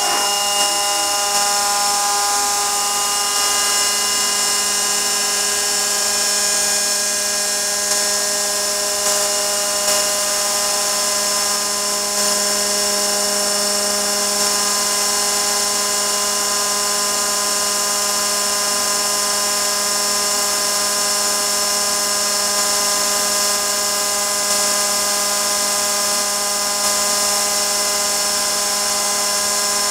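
Gorton 0-16A Super Speed vertical mill spinning a router bit at high speed through claro walnut as it mills a barrel channel. It makes a steady whine of several pitches over the hiss of the cut, with no change in speed.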